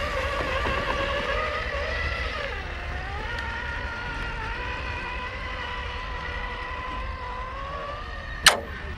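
Electric motor and gear whine of a radio-controlled scale rock crawler, its pitch wavering with the throttle, dipping about three seconds in and then holding steady. A single sharp knock near the end.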